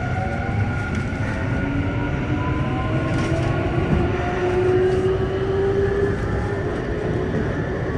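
Tokyu 9020 series train's Mitsubishi full-SiC MOSFET VVVF inverter and traction motors whining as the train accelerates, several tones rising steadily in pitch over a low running rumble.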